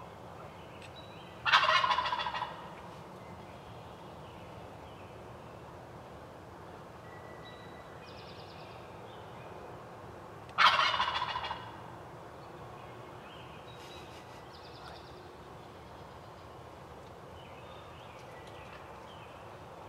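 Wild turkey gobbler gobbling twice, about nine seconds apart. Each gobble is a loud rattling call about a second long that fades out, with fainter bird calls in between.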